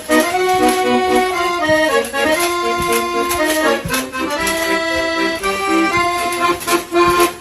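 Instrumental music: held notes that shift from chord to chord, with light percussion ticking under them.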